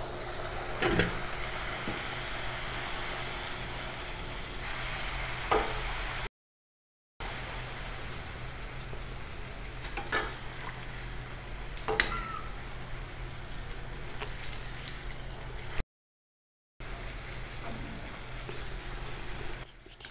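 Wheat puri deep-frying in hot oil in a steel kadai: a steady sizzle, with a few brief clicks along the way. The sound cuts out twice for about a second.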